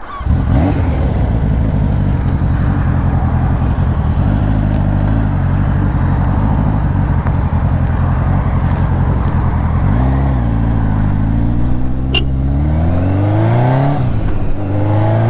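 Kawasaki touring motorcycle engine running at low revs as the bike pulls away, with wind rush on the helmet microphone. About ten seconds in the revs drop briefly, then climb in a steadily rising pitch as it accelerates.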